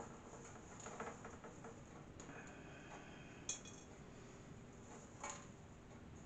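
Faint crackling and rustling of dehydrated cooked rice grains being brushed off a silicone dehydrator mat, then the mat being lifted and folded. Two sharp clicks, one about halfway through and one near the end.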